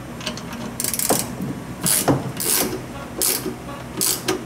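Hand ratchet wrench clicking in short bursts as it is swung back and forth, tightening the engine mount bolts on a Mercruiser 3.0 sterndrive engine.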